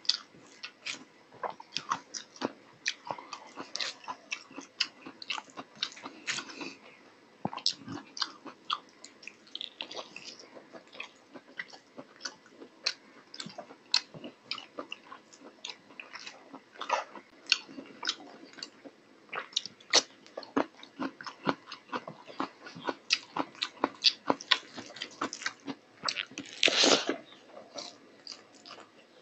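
Close-miked eating by mouth: steady chewing with wet lip smacks and quick mouth clicks, several a second. One longer, louder noise stands out near the end.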